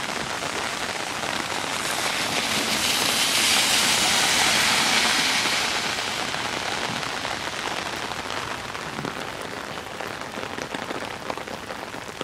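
Heavy rain falling on wet pavement and on an umbrella overhead, a steady hiss that swells louder for a few seconds in the middle.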